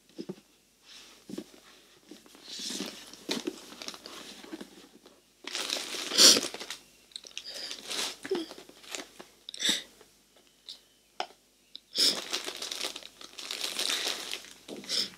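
Wig packaging crinkling in irregular bursts as it is opened and handled by hand, the loudest burst about six seconds in.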